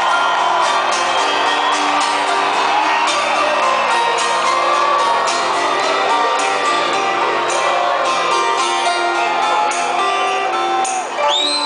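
Live rock band playing loudly with electric guitars, recorded from within the audience, with some whoops from the crowd. Near the end the music dips briefly and a high held note rises.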